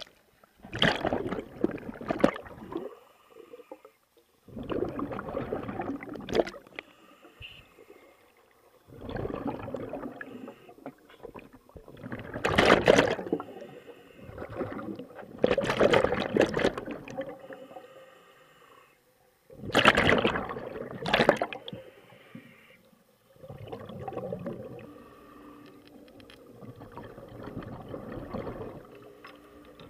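Scuba diver's regulator breathing heard underwater: exhaled bubbles gurgling in loud bursts about every four seconds, muffled by the camera's sealed underwater housing.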